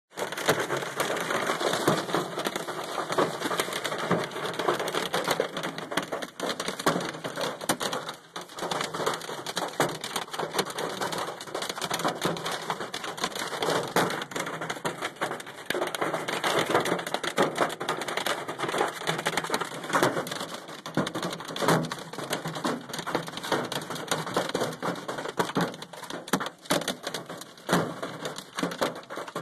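Golf-ball-size hail pelting a pickup truck's body and roof: a dense, rapid clatter of countless hits with louder single knocks scattered through it.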